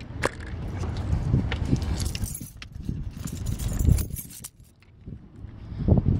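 Wind buffeting the microphone as a low rumble, with clicks and rustles from a handheld camera being moved; the wind drops off briefly about four and a half seconds in.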